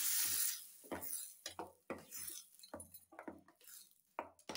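Hot oil tempering of mustard seeds and green chillies hissing briefly as it hits a steel bowl of yogurt, then a steel spoon clinking and scraping against the bowl as the tempering is stirred in. The hiss is the loudest part and fades within about half a second.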